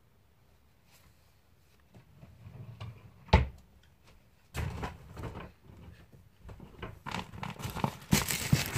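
Household handling noises: a single sharp knock about a third of the way in, then rustling and bumps that grow louder near the end as the phone is grabbed from the bedding.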